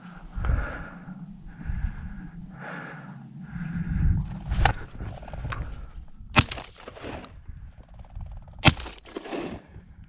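Footsteps crunching through deep snow at a walking pace, about one step a second, with three sharp clicks or knocks in the second half, the last two the loudest.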